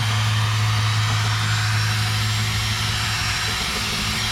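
Power drill spinning a dryer vent cleaning brush on flexible rods inside the dryer duct: a steady whir with a hiss, over a constant low hum.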